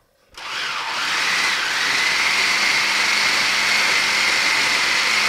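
Electric food processor motor running, chopping raw meat coarsely for chorizo. It starts a moment in, spins up over about a second, then runs steadily with a high whine.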